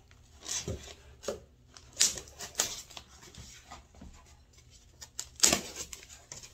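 Irregular scrapes, rubs and clicks of hands handling a styrofoam shipping cooler inside a cardboard box, with a thin blade worked at its lid; the sharpest noises come about two seconds in and about five and a half seconds in.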